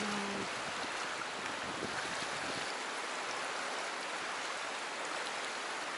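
A fast river rushing through a rocky gorge, a steady wash of moving water.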